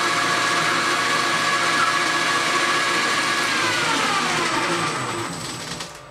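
South Bend Heavy 13 metal lathe running with a steady machine whine; about three and a half seconds in it is switched off and the whine falls in pitch as the spindle and chuck coast to a stop, fading out near the end.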